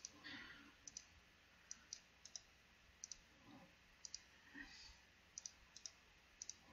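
Faint computer mouse clicks, often in quick pairs like double-clicks, a few every couple of seconds, as text is highlighted, copied through a right-click menu and pasted.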